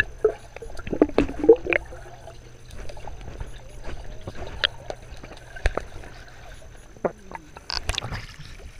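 Muffled underwater sound of a swimming pool picked up by a waterproof camera below the surface: scattered clicks and knocks over a steady low hum. A splash near the end as the camera comes back out of the water.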